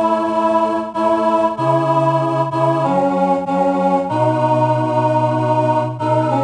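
Electronic organ playing a four-part hymn in held chords that change every second or two. The notes are perfectly steady, without vibrato, as in a synthesized part-practice track.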